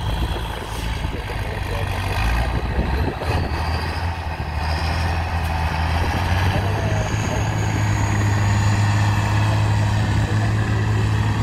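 Trial truck's diesel engine pulling under load through deep mud, a steady low drone that grows louder from about three seconds in.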